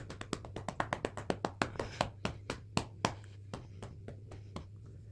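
A hand quickly patting a cat's rump, a fast steady run of slaps at about four to five a second that stops shortly before the end.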